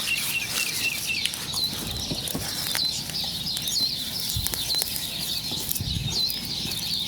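Young chickens peeping over and over in short, high calls, over a low rumble.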